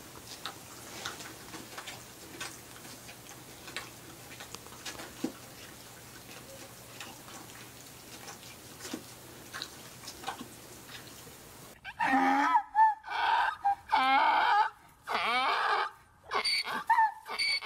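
Faint scattered clicks as two donkeys nibble at a hanging feed ball. Then, about twelve seconds in, a donkey brays loudly: a string of hee-haw calls rising and falling in pitch, with short breaks between them.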